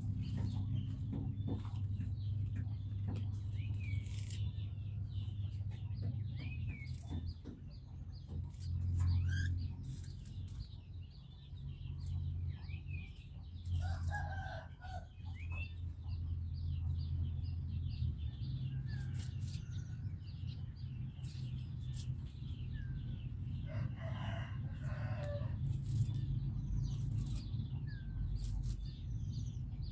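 A rooster crowing twice, about halfway through and again some ten seconds later, among many short high bird chirps and light rustling and snapping of tamarind twigs being picked.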